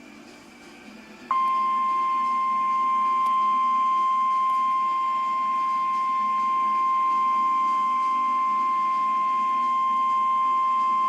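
NOAA Weather Radio warning alarm tone: a single steady high beep of about 1050 Hz that starts a little over a second in and holds for about ten seconds before cutting off. It is the tone that announces a warning broadcast, here a severe thunderstorm warning.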